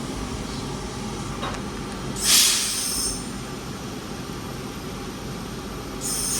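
Class 323 electric multiple unit standing at the platform with its equipment humming steadily, a short loud burst of air hiss about two seconds in, and a steady high whine setting in near the end as it gets ready to pull away.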